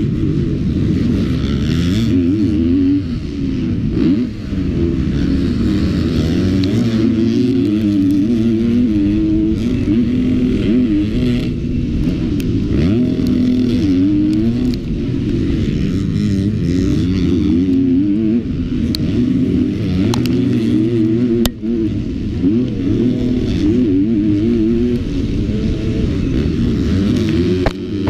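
KTM motocross bike engine, heard on board at race pace, revving hard and rising and falling in pitch as the rider works the throttle and gears. The sound dips briefly a couple of times where the throttle is shut off.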